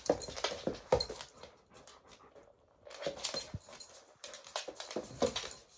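A dog making noises in three short bursts.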